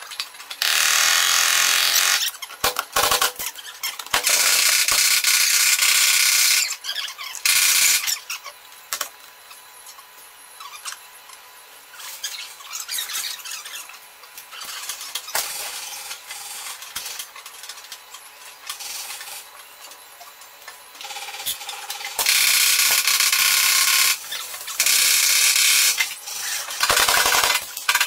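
Paintless dent repair on a car door panel: several bursts of loud hissing noise, each lasting one to two and a half seconds, with quieter stretches of light taps and clicks between them.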